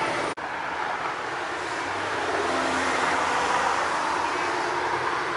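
Street traffic ambience: a steady wash of passing car noise with a faint engine hum in the middle, broken by a brief dropout just after the start.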